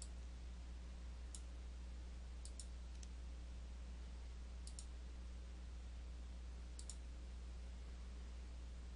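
Computer mouse clicking every second or two, several as quick double clicks, over a faint steady low hum.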